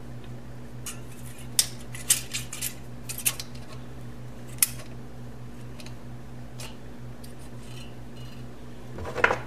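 Light metallic clicks and clinks of small hand tools, a feeler gauge and the valve adjuster, on a motorcycle cylinder head while setting valve clearance. The clicks are scattered and come mostly in a cluster a couple of seconds in, over a steady low hum.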